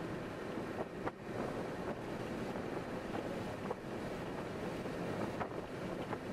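Steady road and wind noise of a car driving at highway speed, with a few faint knocks.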